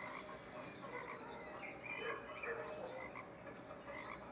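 Quiet pause with faint outdoor background: scattered short animal calls, small and irregular, under a low hiss.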